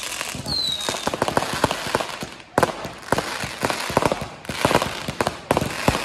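Fireworks display: dense crackling and popping of bursting aerial fireworks, with a short falling whistle about half a second in. Fresh volleys of crackle start at about two and a half, four and a half and five and a half seconds.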